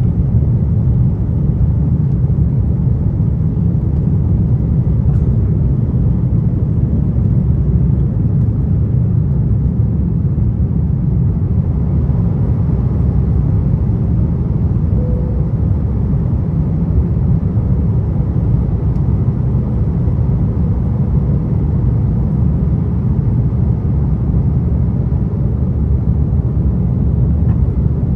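Steady low rumble of an Airbus A330 airliner's engines and airflow heard inside the passenger cabin in flight.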